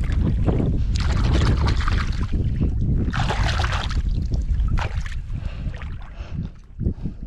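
Wind buffeting the microphone as a steady low rumble, with two louder gusts of hiss about a second in and around three seconds in.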